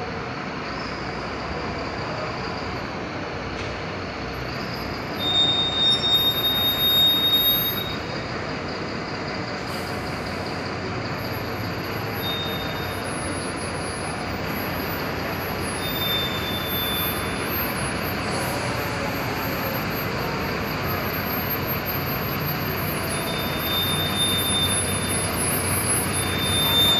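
Low-floor city bus pulling slowly away, its diesel engine running under a steady rumble of terminal traffic, louder for a couple of seconds about five seconds in. Brief high squeals come now and then.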